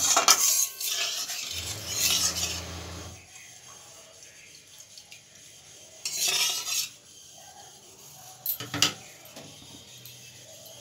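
Metal spatula stirring and scraping through a thin spiced gravy in a metal kadai, in a few bursts: at the start, around two seconds in, about six seconds in and briefly near nine seconds, with quieter pauses between.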